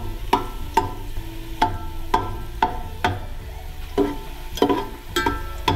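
Steel spoon stirring garlic slices frying in hot oil in an aluminium pot, striking the pot about twice a second with each knock leaving a short metallic ring, over a light sizzle.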